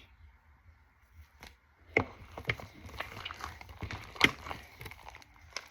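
Sticky slime being kneaded and stretched by hand with shaving cream worked in: a run of wet squelches, clicks and air-pocket pops that starts about two seconds in, with two louder snaps.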